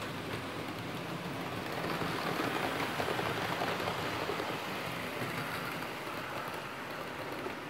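OO scale model trains running on the layout track, a steady rattling hiss of wheels on rail with fine ticking. It swells about two seconds in and eases off after about four and a half seconds as a train of coaches passes close by.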